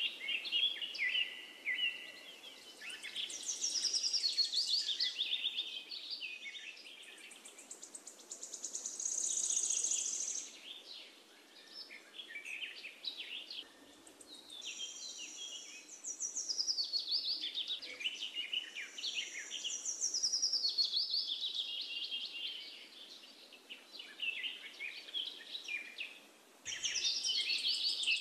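Birds chirping and calling, many of the notes short falling whistles, over a high insect trill that swells and fades several times.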